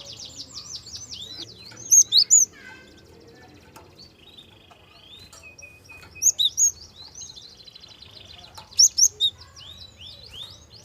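Gelatik song: loud, clipped whistled notes in quick groups of three or four, about 2, 6 and 9 seconds in, between rapid high trills and softer twittering. It is a lure recording, played to prompt young gelatik to sing.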